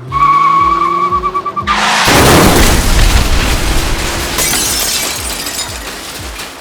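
A loud crash with shattering about two seconds in, fading away over the next few seconds, as a tower of magnetic tiles and wooden blocks is smashed. Before the crash there is a wavering high tone. Background music with a steady beat plays throughout.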